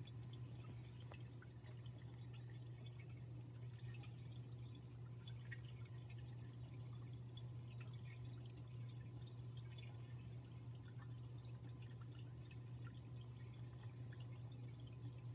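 Water from a small stone waterfall trickling and splashing steadily into a medaka biotope pond, with scattered small drips, over a steady low hum.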